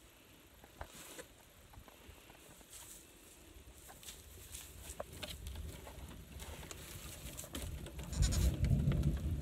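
Goat kids bleating and moving about on straw, with scattered light taps. A low rumble of microphone handling grows loud near the end.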